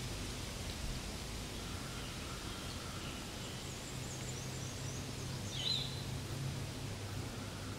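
Steady outdoor background noise with a low hum, and a few short high bird chirps around the middle, the loudest a little after halfway.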